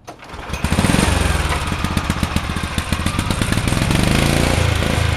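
Tecumseh single-cylinder snowblower engine on a garden race tractor starting cold on full choke. It catches straight away and builds into fast, loud firing through an open upright exhaust pipe. It revs up and down in the middle, then settles into steady running.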